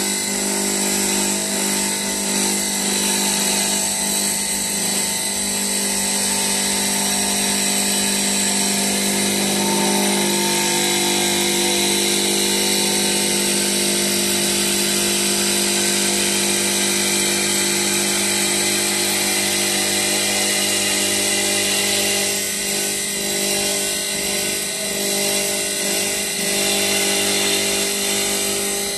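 GoodCut GC1220WL CNC wood lathe running and turning a wooden workpiece: a steady mechanical whine from the spindle and cutters, with the level wavering slightly over the last few seconds.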